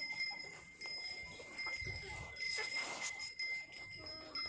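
Farm animals stirring and calling faintly, with scattered rustling and a steady high-pitched tone.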